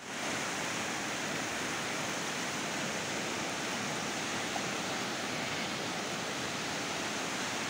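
Muddy flash-flood water rushing fast over sandy ground in breaking standing waves: a steady, unbroken rush.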